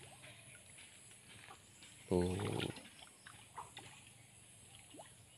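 A short wordless vocal sound from a man, a grunt lasting under a second about two seconds in. Otherwise quiet pond-side ambience with a few faint ticks.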